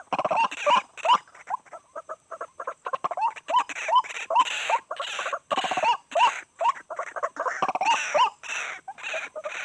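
White-breasted waterhen calls: a rapid, uneven series of short harsh notes, many of them rising at the end, going on without a break.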